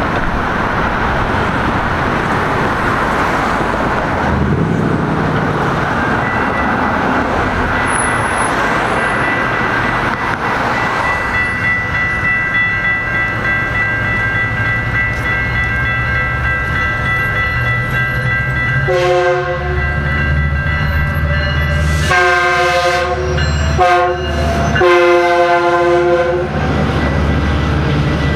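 Railroad crossing bells ringing steadily, then a Metrolink commuter train's horn sounding the grade-crossing signal about 19 seconds in: long, long, short, long. The train's low rumble builds under the horn.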